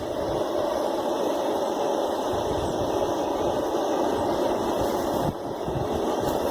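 Forge running with the knife blade heating in it before the quench: a steady rushing noise with a low rumble underneath, with no hammer strikes.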